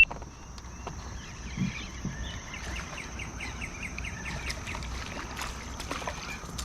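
Steady high-pitched drone of crickets, with a songbird singing a quick run of notes around the middle. A sharp click at the very start and scattered light knocks from handling in the kayak while a small fish is landed.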